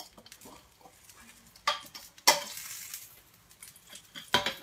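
Metal künefe plates clattering as a künefe is flipped over on a hot electric hob. A loud metal strike about two seconds in is followed by the sizzle of buttered kadayif landing on the hot plate for about a second, then another metal clank near the end.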